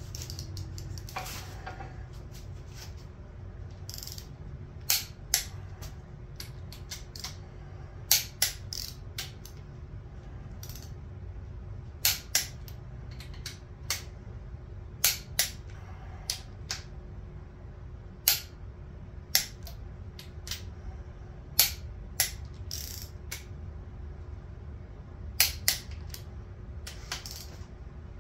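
Torque wrench clicking as each cylinder-head bolt on a Ford 428 FE big-block reaches its set torque: sharp clicks, mostly in pairs a fraction of a second apart, every few seconds, over a steady low hum.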